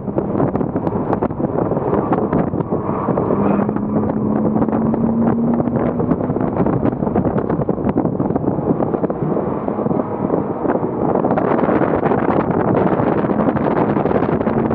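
Porsche Cayman S flat-six engine running hard, heard onboard under heavy wind buffeting on the microphone. Its pitch climbs steadily a few seconds in and again near the end as the car accelerates, and the sound brightens and grows slightly louder about three-quarters of the way through.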